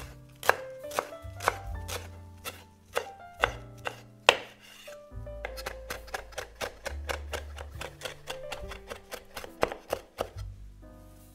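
Santoku knife chopping fresh parsley on a wooden cutting board, each stroke a crisp knock of the blade on the wood. The first half is slower, about two chops a second; then comes a fast run of about five a second that stops shortly before the end.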